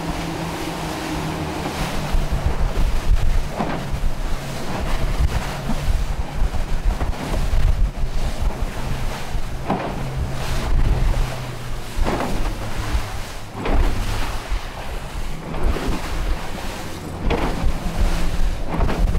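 Outboard motors droning steadily as a boat runs through a swell, with the hull slapping down on the waves several times and wind buffeting the microphone.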